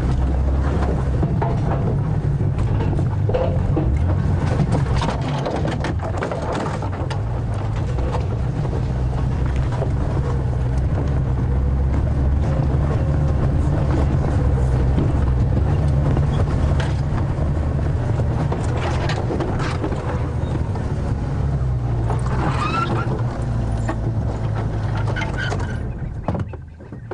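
Safari game-drive vehicle driving over rough bush ground: a steady engine and road rumble with frequent rattles and knocks from the bodywork, which drops away shortly before the end.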